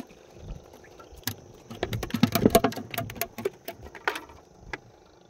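Small sea catfish (ikan duri) flapping on a wooden boat deck: irregular knocks and pattering taps, thickest and loudest about two to three seconds in.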